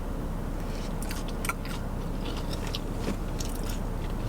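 Close-up chewing of a breaded fried mozzarella stick: scattered small crunches and mouth clicks over a steady low hum.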